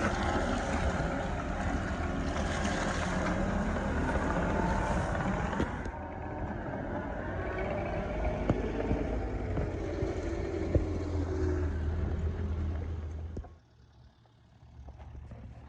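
Engine of a heavy machine running steadily as it backs down a ramp off a barge, with a couple of sharp clanks. The sound eases a little about six seconds in and drops away suddenly near the end.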